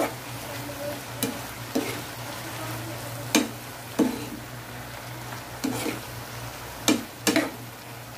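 Long beans and fried tofu sizzling in a nonstick frying pan while a plastic spatula stirs them, scraping and knocking against the pan about eight times at irregular intervals.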